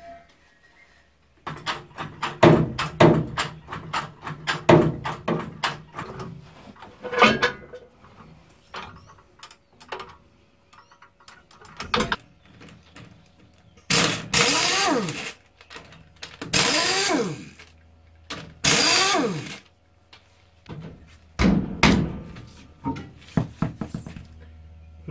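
Wheel nuts being loosened with a wrench: a quick run of metallic clicks and knocks. Then three long, squeaky creaking strokes as a hydraulic trolley jack is pumped to lift the vehicle. A heavy thud follows, then a few more clicks as the wheel nuts come off.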